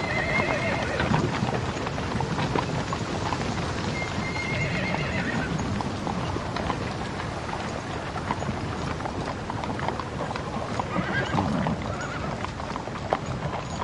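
A group of horses clopping along at a walk, many hooves striking the ground, with horses whinnying now and then.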